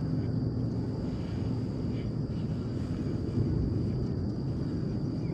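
Steady outdoor background on open water: a low engine drone that fades in the first moments, over a constant faint high-pitched whine and wind-like rush.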